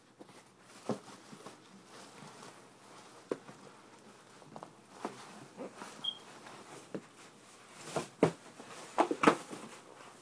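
Cardboard processor box and its packaging being handled and opened: scattered light rustles, taps and clicks, with a louder cluster of handling noises near the end.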